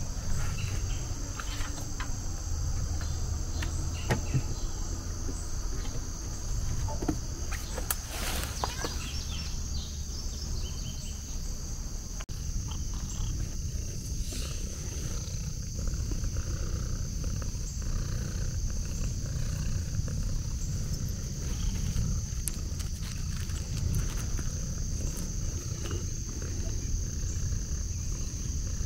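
Insects droning steadily in a high-pitched chorus, over a low rumble, with scattered rustles and clicks, the loudest about eight seconds in.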